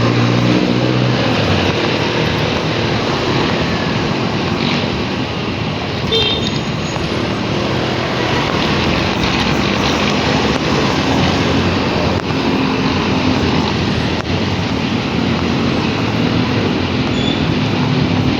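Steady wind and road noise from riding a motorcycle in traffic, with the engine's hum underneath.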